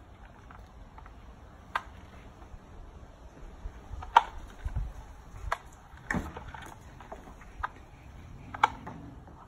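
Basset hound rolling and wriggling on its back in grass: soft rustling with about six short, sharp clicks at uneven intervals, the loudest about four seconds in.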